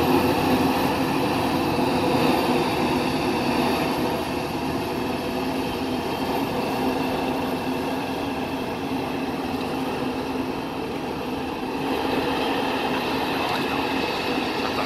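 Krone BIG X 1180 forage harvester's 24-litre V12 engine and chopping drum running steadily under load while cutting maize, a continuous machine drone with a steady hum. It dips slightly in loudness partway through and picks up again near the end.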